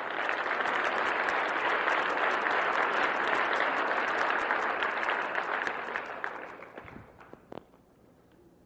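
Audience applauding, a steady clatter of many hands that fades away about six or seven seconds in.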